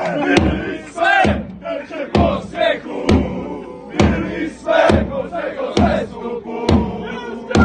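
A large crowd of football supporters singing a chant in unison, with a sharp beat about once a second.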